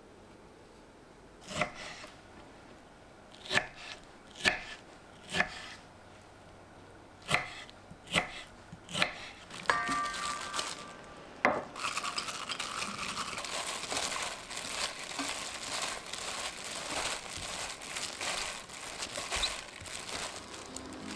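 Kitchen work: about eight separate sharp knocks in the first half, then a steady crackly hiss from a little past halfway, with a brief tone just before the hiss begins.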